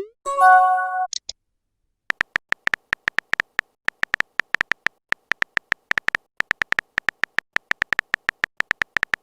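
A short message-notification chime, then a long run of rapid, irregular keyboard-typing clicks: the sound effects of a text chat being typed out.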